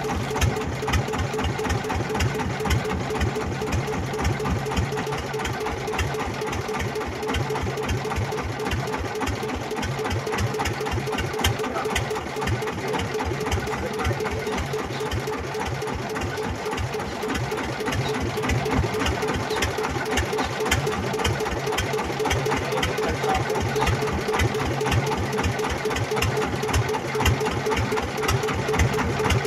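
Small fishing boat's engine idling with a steady, even low pulse.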